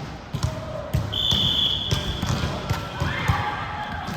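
Basketballs bouncing on a hard court floor, a quick run of low thumps. A short high whistle-like tone sounds about a second in and lasts just under a second, and voices call out in the second half.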